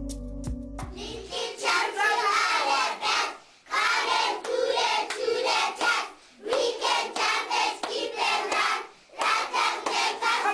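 Young children singing together and clapping along, in phrases of a few seconds with short breaks between them.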